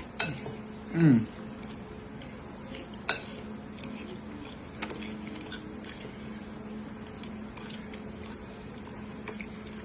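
Eating utensil clicking and scraping against a dish of instant noodles as they are stirred and eaten, in scattered sharp clinks. A person murmurs "Mmm" about a second in, over a faint steady low hum.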